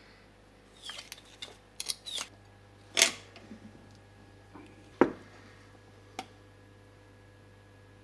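Printmaking tools and ink being handled on a work surface: scattered light clicks and taps, with two sharper knocks about three and five seconds in, over a faint steady hum.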